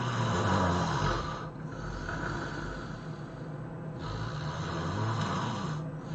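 A person snoring hard: three long, noisy snores about two seconds apart, each separated by a brief pause for breath.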